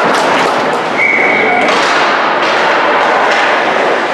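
Ice hockey play in a rink: thuds and knocks of sticks, puck and players against the boards over a steady wash of arena noise. A short, steady high tone sounds about a second in.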